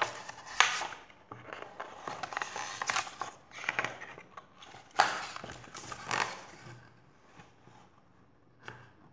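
Pages of a hardcover picture book being turned and handled: paper rustling and flapping, with sharper flicks about half a second in and again around five and six seconds in.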